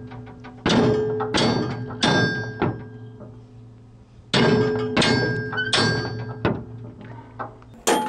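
Hammer striking the steel belt keepers on a riding mower's cutting deck, bending them in closer to the blade pulleys so the belt can't come off. The ringing metal blows come in two runs of four, about two-thirds of a second apart, then one more near the end.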